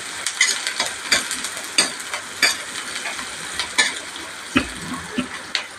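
Chopped onions and dried red chillies sizzling in hot oil in a kadai, stirred with a steel ladle that scrapes and clicks against the pan about once a second, with one heavier knock near the end. The onions are being sautéed toward golden brown.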